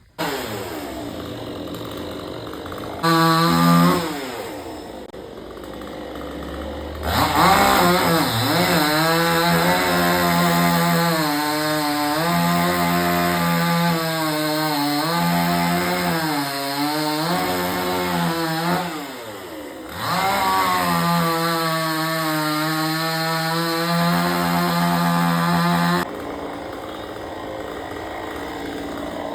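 Chainsaw cutting a tree: the engine revs briefly, then runs at full throttle for most of the time, its pitch sagging and recovering again and again as the chain bites into the wood. Near the end it drops back to a lower, steady running speed.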